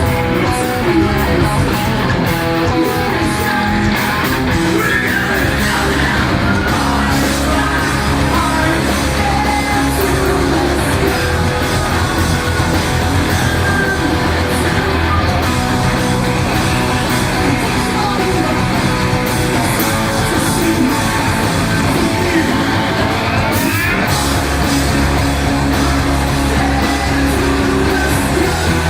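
A live rock band playing loud, with electric guitars and a singer. The heavy bass drops back through the middle and comes back in strongly near the end.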